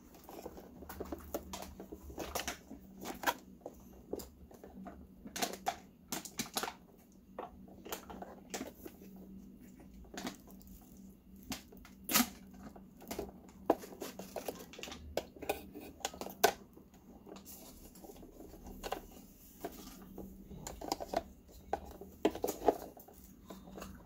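Irregular clicks and light knocks of a plastic coffee maker's housing and a switch wire connector being handled while the wire is worked back onto its terminal, over a faint steady hum.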